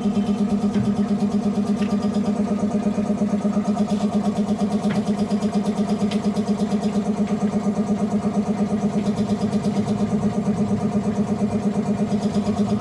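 Automatic glass-cutting machine running with a steady, loud hum that pulses quickly and evenly, with a few faint ticks.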